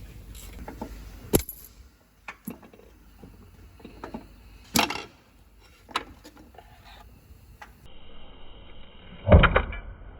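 Scattered sharp clanks and knocks of metal tools and engine parts being handled, a few seconds apart, the loudest a double knock near the end.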